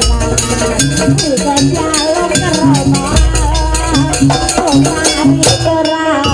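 Live East Javanese jaranan music: a slompret (reed shawm) playing a bending, wavering melody over quick kendang drumming and metal percussion strokes. Deep gong booms sound at the start and again about three seconds in.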